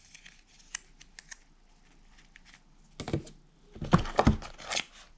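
Hands handling paper and cardboard packaging: faint scattered ticks and rustles, then a cluster of louder clicks and knocks from about three seconds in as the hands reach into the cardboard box.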